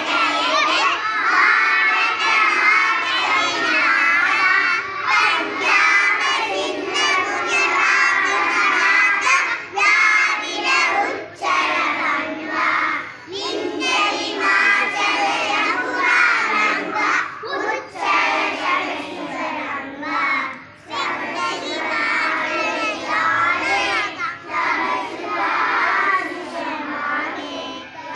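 Young children singing together into a microphone, their high voices running on with short breaks between phrases.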